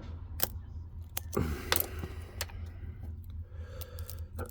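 Lock pick clicking and tapping against the pin stack of a Ruko 600 lock with barrel spool pins during single-pin picking: a handful of light, scattered clicks, with one brief louder, noisier sound about a second and a half in.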